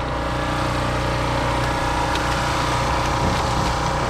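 A small engine on a bowfishing boat running steadily at idle, a constant drone that does not change in pitch.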